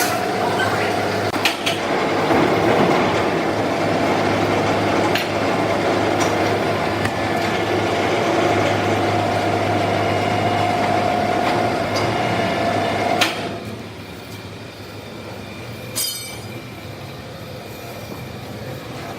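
Sawmill machinery running, a steady mechanical din with a held mid-pitched tone over a low hum. It drops off sharply with a clack about two-thirds of the way through, leaving quieter machine noise, and another sharp clack comes near the end.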